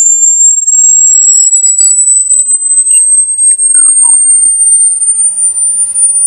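Electronic rat-repellent tone, an 'electro wave' played to drive rats away: a loud, high-pitched pure tone that slowly rises in pitch. Fainter sweeping tones die away in the first couple of seconds.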